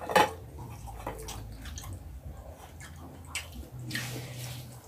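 Eating by hand from enamel plates: fingers scraping food on a plate, with small clicks and taps and one sharp tap just at the start, over a low steady hum.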